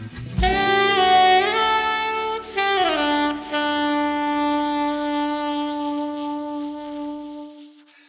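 Background jazz music: a saxophone plays a few notes, then settles on one long held note that fades out and stops near the end.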